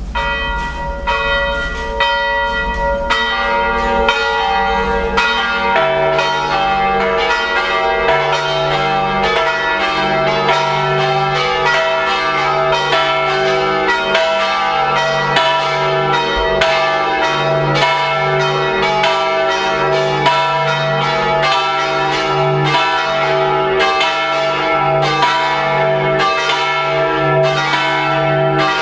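Church bells swinging and ringing together in a full peal (plenum) calling to Sunday mass, their strikes overlapping continuously. More bells join over the first few seconds, a deeper one coming in about six seconds in.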